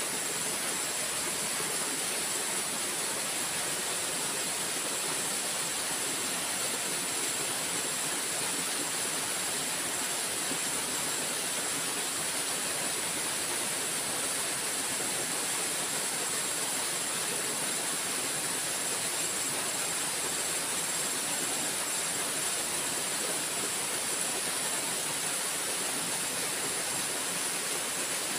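Steady rushing noise of flowing river water, unchanging throughout, with a constant high hiss on top.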